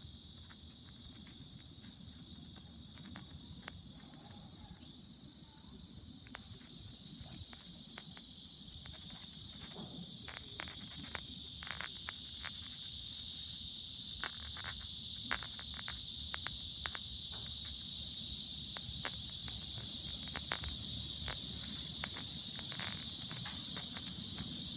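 A steady, high-pitched insect drone that grows louder about halfway through, over a low rumble of wind on the microphone, with scattered faint clicks.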